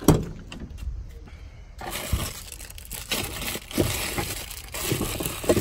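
Van door latch clicking open as the handle is pulled, followed by a few seconds of rustling and handling noise as things in the door pocket are rummaged through.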